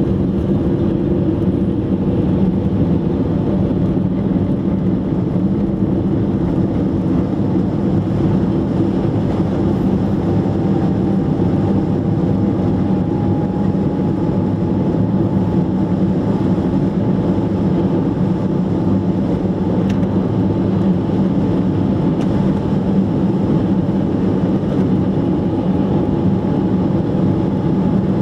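Steady engine and road noise of a moving car heard from inside the cabin, with a faint high whine joining about a third of the way in.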